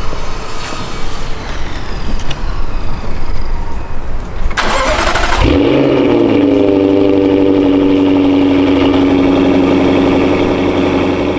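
A Jaguar F-Type R's supercharged 5.0-litre V8 cranks and catches about four and a half seconds in, flares up briefly, then settles into a steady idle. Before that there are a few seconds of rough noise.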